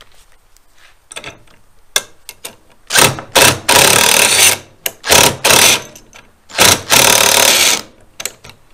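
Ratcheting wrench clicking in quick runs as a nut is turned down on a bolt: a few faint clicks at first, then several loud bursts of rapid clicking from about three seconds in, with short pauses between strokes.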